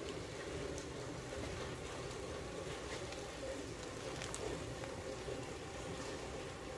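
Steady low background hum, with a few faint ticks from 1/16-inch fineline tape being pulled and pressed down in a flame layout.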